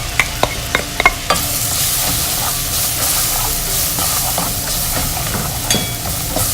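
A spoon clinks against the pan several times, then a steady sizzle starts about a second in as butter, garlic, black pepper, chili flakes and paprika fry while being stirred.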